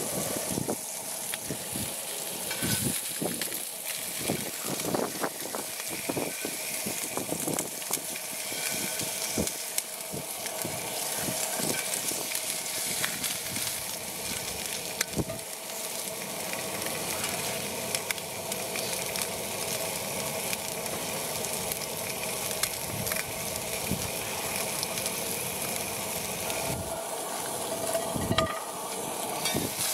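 Fish fillets sizzling in hot oil in a cast-iron skillet, with frequent short clicks and scrapes of a metal spatula on the pan, mostly in the first half.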